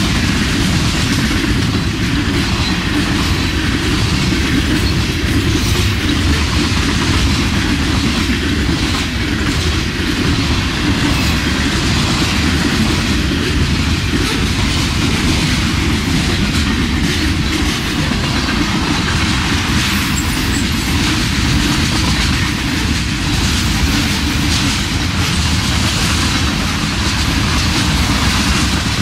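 Freight cars of a mixed freight train rolling past at speed close by: loud, steady steel-wheel-on-rail noise that holds without letup as car after car goes by.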